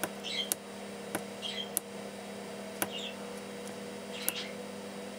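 Steady electrical mains hum. About half a dozen sharp clicks are scattered through it, along with a few faint, short high chirps.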